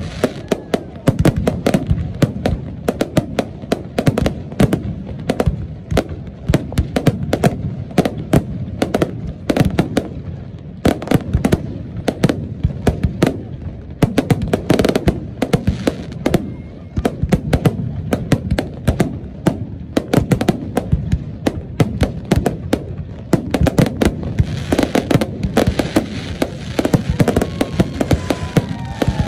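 Firework display: aerial shells bursting in a rapid, unbroken barrage of bangs and crackles, with the crackling growing denser in the last few seconds.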